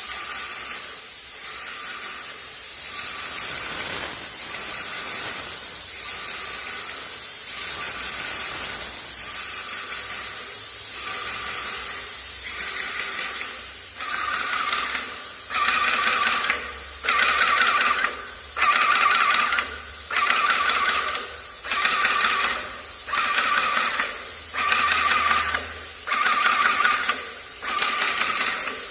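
HYVST SPT 210 airless paint sprayer spraying paint with a steady hiss. About halfway through, a louder pulsing begins, roughly one pulse a second.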